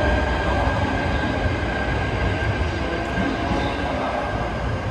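Train at a station platform, running with a steady low rumble and a constant high whine.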